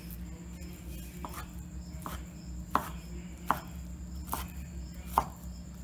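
Chef's knife chopping stacked ham slices on a wooden cutting board: a slow, even run of sharp blade knocks on the board, a little under one a second.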